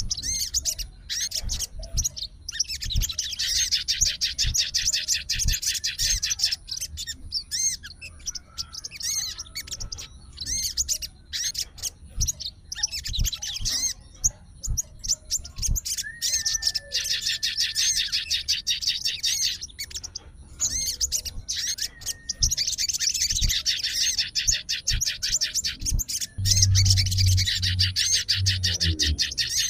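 Sogon songbird singing: fast, dense trilled phrases of two to three seconds each, repeated with short pauses, and one thin drawn-out whistle between them. It is the agitated, challenging song of a fighting sogon calling out a rival.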